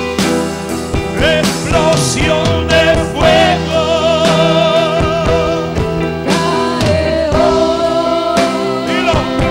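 Live worship song: a lead singer holds long notes with vibrato through a microphone, over electronic keyboard and drums.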